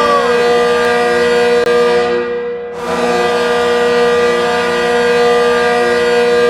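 Goal horn sounding a loud, steady multi-tone chord in long blasts: the first tails off about two and a half seconds in, and the next starts about half a second later and holds.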